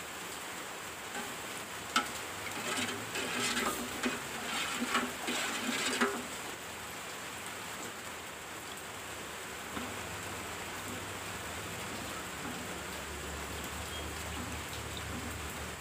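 Spoon stirring in an aluminium pot of dyed water on the stove, with a sharp click and then a few seconds of small clinks and scrapes, after which only a steady low hiss remains.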